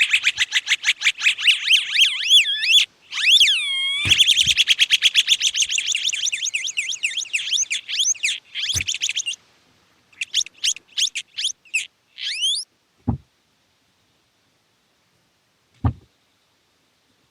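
Homemade fidget spinner's small built-in speaker playing electronic sound effects: rapid warbling, chirping beeps that glide up and down in pitch. They thin out to scattered chirps and stop about twelve seconds in. A few soft low knocks come through, the last two after the beeps have stopped.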